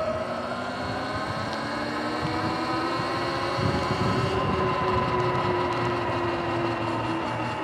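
Sur-Ron Light Bee electric dirt bike under way: the motor and chain drive whine in several tones, sagging slightly in pitch, over a steady hiss of tyres on wet pavement.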